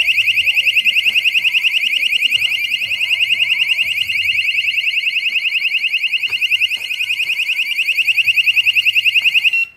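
Piercing electronic siren of a Cuteefun magnetic door and window alarm, warbling rapidly several sweeps a second. It was set off by the magnetic sensor with the door left only slightly open, and it cuts off suddenly near the end.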